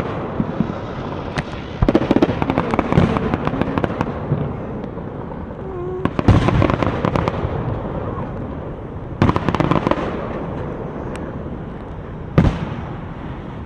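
Fireworks going off: volleys of rapid crackling pops come about two, six and nine seconds in, with a single sharper bang near the end, over a continuous rumble of more distant fireworks.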